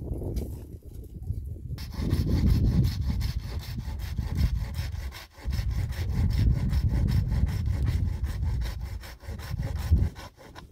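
A saw cutting through firewood in two long spells, with a short pause about five seconds in, stopping near the end.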